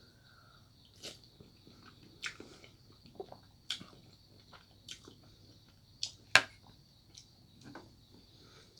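Close-up crunchy snack being bitten and chewed: a series of sharp, irregular crunches, the loudest about six seconds in, over a faint steady high-pitched whine.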